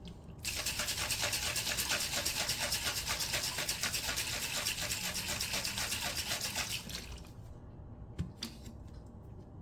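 Creatine powder being mixed into a drink: a fast, even, rhythmic swishing for about six seconds that then stops, followed by a couple of light taps.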